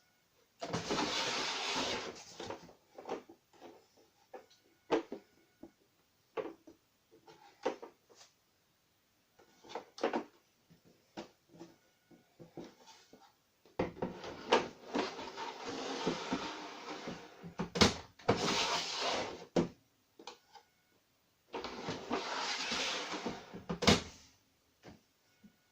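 Handling noises around a tumble dryer: three stretches of rustling, the longest lasting several seconds, with sharp knocks and clunks like a cupboard or machine door being handled.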